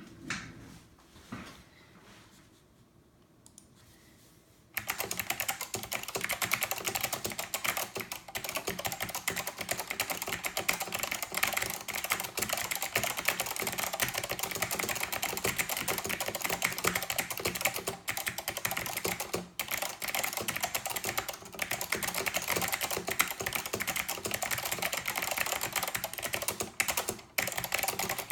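Fast typing on a Northgate OmniKey 102 mechanical keyboard with clicky Alps SKCM Blue switches. A couple of single key clicks come first, then from about five seconds in a dense, continuous run of key clicks, broken by a few brief pauses.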